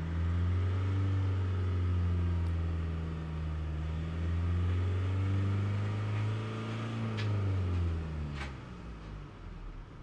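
Ford Transit diesel engine revved up and held, dipping briefly and held again, then falling back towards idle near the end. The revving is a test of the exhaust back-pressure ahead of the diesel particulate filter, which climbs to about 300 kPa; the mechanic calls this too high, a sign of a heavily loaded filter.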